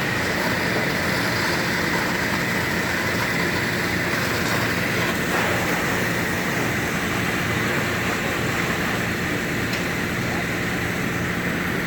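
Heavy demolition machinery's engine running steadily, with a constant high whine above a low hum.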